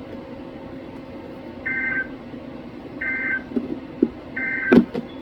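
Weather radio sounding the SAME end-of-message code: three short, identical warbling data bursts about a second apart, marking the end of the tornado warning broadcast. A sharp click follows just after the last burst.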